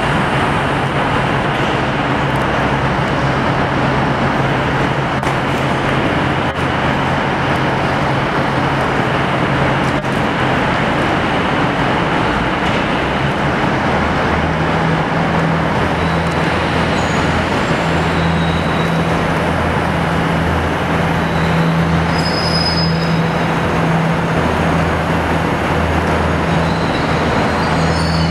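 Railway platform ambience: a steady low hum from standing trains under a constant wash of noise, with a deeper hum joining about halfway through.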